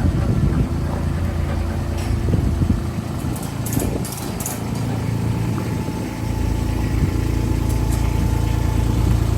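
An engine running steadily at low speed. Its low hum eases about three seconds in and comes back stronger about six seconds in.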